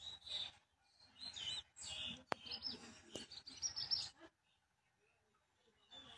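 Birds chirping in a run of short, high calls, with a sharp click partway through.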